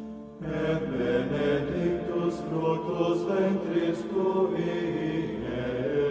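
Background music of slow chanted singing: sustained voices holding long notes over a steady low drone, with a new phrase starting about half a second in.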